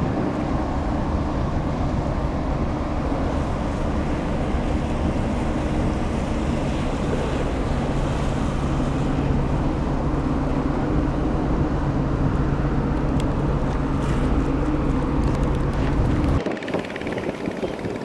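Passing container ship WAN HAI 288: a steady low engine drone with a constant hum under it, mixed with wind noise on the microphone. It cuts off suddenly about sixteen seconds in.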